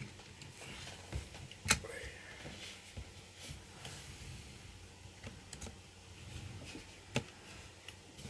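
Handling noise from a plastic Lego Technic model being moved about: a few sharp clicks and light knocks, two of them louder, about two seconds in and near the end, among faint rustling.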